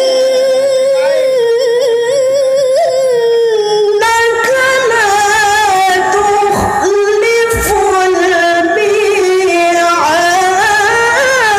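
A woman reciting the Qur'an in the melodic mujawwad style into a microphone, holding long ornamented notes that waver in pitch. She takes a short breath and moves to a higher phrase about four seconds in, and rises again near the end.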